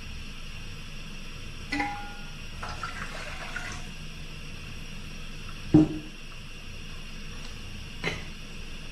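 Portable gas canister stove's burner hissing steadily under a pot of water, with a few light knocks, the loudest a little before six seconds in.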